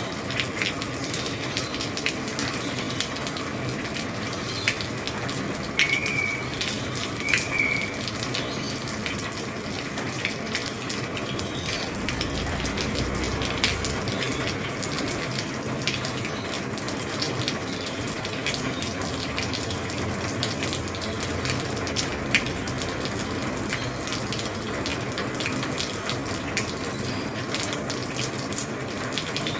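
Heavy rain falling on an old roof: a steady hiss of rainfall peppered with many sharp drop taps.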